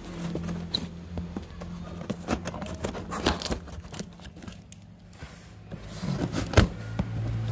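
Cardboard box being handled and scraped: irregular rustles, taps and knocks on cardboard, with one sharp knock near the end.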